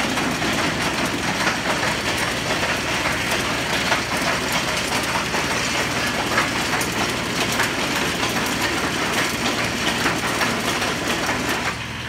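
The hydraulically driven rod chain of a 42-inch-wide D-10T potato digger running empty with a steady metallic clatter, over an idling tractor. The clatter cuts off at the very end as the chain stops and the hydraulic circuit goes onto relief.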